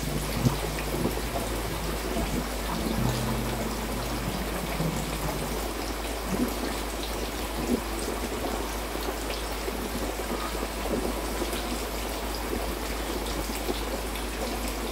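Small sole fish frying in hot coconut oil in a pan: a steady sizzle with scattered small crackles and pops.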